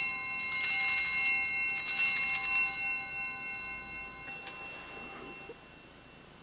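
Hand-held altar bells (Sanctus bells) rung at the elevation of the consecrated host: a jingling peal of several bells, shaken again about two seconds in, then ringing out and fading away over the next few seconds.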